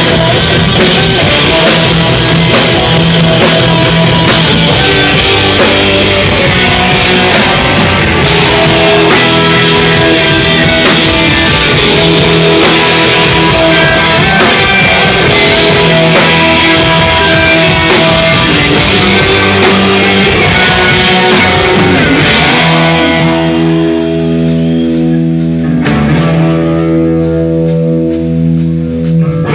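Hardcore band playing live and loud: distorted electric guitars, electric bass and a drum kit. About twenty-two seconds in the drums and cymbals drop away, leaving the guitars and bass ringing out on held notes with a faint steady tick.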